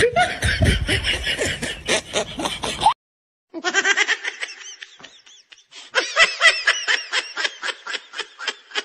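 Laughter clips strung together: a run of rapid, pulsing laughs, then an abrupt cut to dead silence about three seconds in, then two more laughing bursts, the last one high-pitched.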